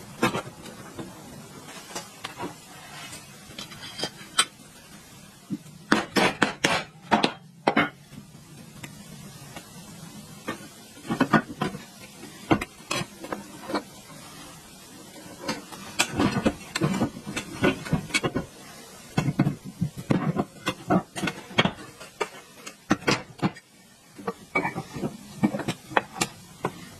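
Irregular metallic clinks and knocks, some in quick clusters, as metal water pump motor parts and hand tools are handled and fitted.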